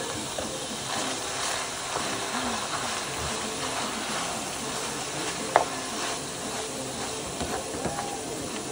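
Ground beef and tomato paste sizzling in a frying pan on a gas burner while a utensil stirs and scrapes through it. About halfway through, the utensil knocks sharply once against the pan, the loudest sound.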